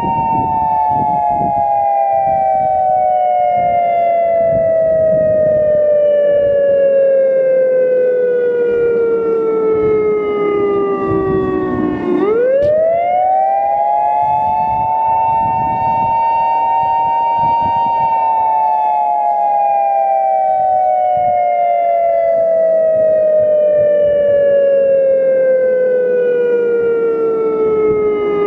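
Federal Signal EOWS 1212 prototype warning siren sounding the attack signal, a slow rise and fall in pitch. The two-note tone winds down for about twelve seconds, swoops quickly back up and holds high for a few seconds, then winds down again and begins to rise once more at the very end.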